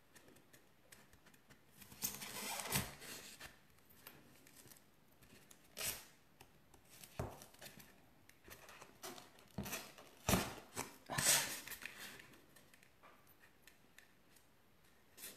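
Handling noises of hands working sugarpaste figure legs standing in a cake dummy: scattered soft rustles and a few short sharp clicks, the louder ones about two, six and ten to twelve seconds in.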